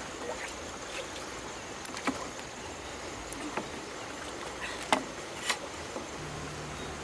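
Water sloshing with a few light knocks. A low steady hum comes in about six seconds in.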